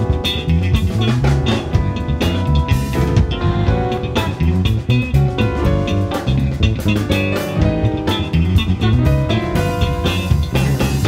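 Live rock band playing loudly: two electric guitars, bass guitar, keyboards and a drum kit together.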